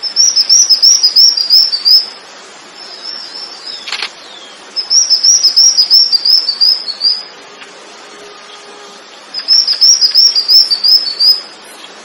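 A songbird singing three bursts of about a dozen rapid, high chirps, each burst about two seconds long and dipping slightly at its end, with quieter calls in the pauses between. A single sharp click comes about four seconds in.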